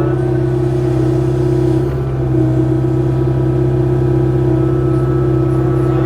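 Kubota KX057-4 excavator's diesel engine running steadily at working speed, with a slight dip about two seconds in.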